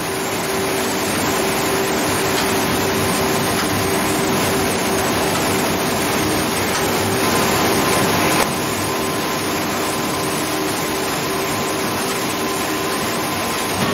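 Citrus processing machinery running with a steady, even mechanical noise and a faint steady hum. The noise changes character slightly about eight seconds in.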